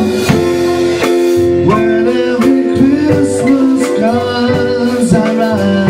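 A small live band playing: drum kit with cymbals, keyboard and flute, with a singer's voice over them.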